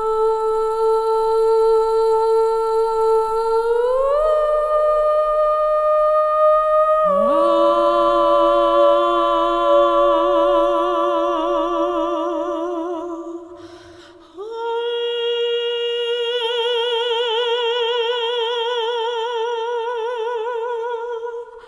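Long held humming tones, rich in overtones: one note slides up a step about four seconds in, a second, lower voice joins a few seconds later, and both swell into vibrato. They fade briefly about two-thirds of the way through, and a new pair of wavering notes follows.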